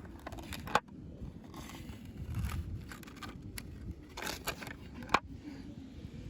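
Doll packaging being handled: scraping and rustling, with two sharp clicks, one about a second in and one about five seconds in.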